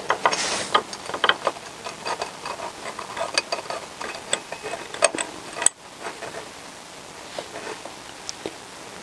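Small metal parts of a Honda CBR1000F clutch clicking and clinking as the coil clutch springs and pressure plate are fitted by hand. There is a quick run of sharp clicks for the first five seconds or so, then only a few scattered ones.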